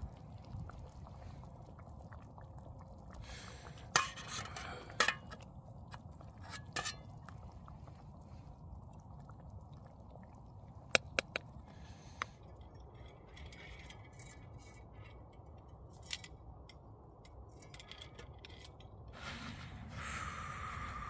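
Scattered clinks and taps of dishes and cutlery, a dozen or so sharp strikes spread out with a few in quick succession, over a low steady rumble.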